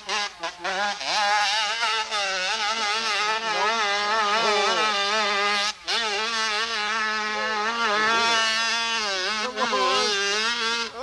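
Dirt bike engine revving hard on a steep hill climb, its pitch wavering up and down with the throttle. It drops out for a moment a little before halfway, then picks up again.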